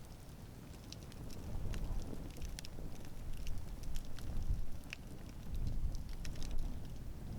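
Wood campfire burning, with irregular sharp crackles and pops over a low rumble of flames.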